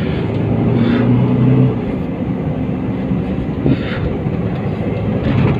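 Toyota car heard from inside the cabin while driving: a steady low engine drone under road noise, with a few short rushes of higher noise.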